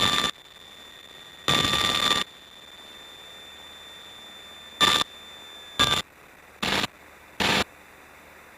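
Aircraft radio heard through the cockpit headset, opening in bursts of static without speech: one longer rush of static about a second and a half in, then four short ones about a second apart, with a faint hiss between them.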